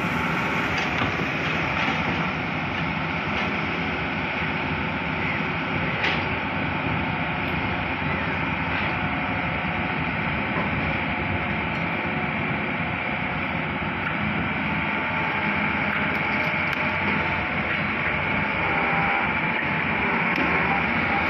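Hydraulic excavator's diesel engine running steadily at work, with a few faint knocks around six seconds in and near the end.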